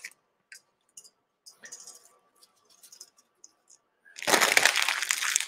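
Faint clicks and rustles of handling, then about a second of loud rattling and crinkling near the end as dry linguine is tipped from its plastic package into a metal pot.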